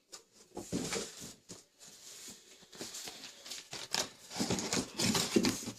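Cardboard box and packaging being handled: irregular rustling, scraping and light knocks, busier in the second half.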